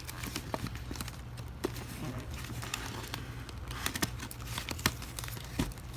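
Firework packaging being worked open by hand: scattered small clicks and crinkling rustles.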